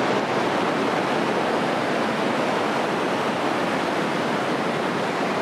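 Underground river rapids rushing through a deep limestone cave canyon: a steady, unbroken rush of white water.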